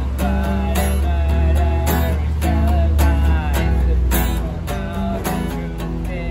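Acoustic guitar strummed in a rhythm, with a low rumble under the first four seconds or so.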